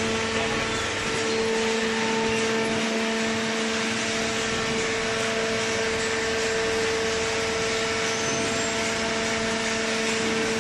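Hydraulic cardboard baler's electric motor and pump running with a steady, even hum.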